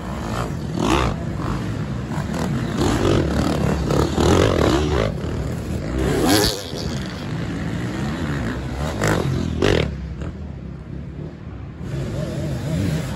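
Off-road dirt bike engines revving hard under load as they climb a steep dirt hill, the pitch rising and falling with sharp throttle bursts about halfway through and again near the end.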